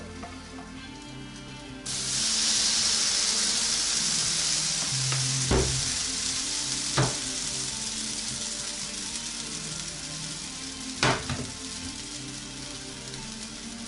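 Oatmeal pancake batter hitting a hot frying pan: a loud sizzle starts suddenly about two seconds in and slowly dies down. Three sharp knocks come during it, the last near the end.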